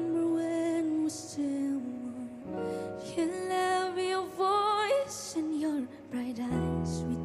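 A female voice sings a slow, tender ballad, holding long notes with vibrato over soft piano accompaniment.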